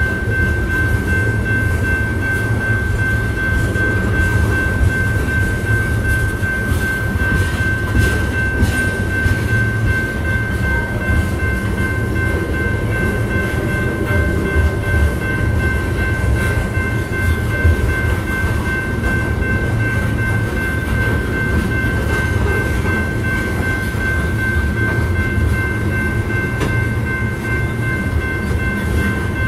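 Coal train's freight cars rolling past: a steady low rumble of steel wheels on rail with faint clicks, and a steady high ringing tone above it.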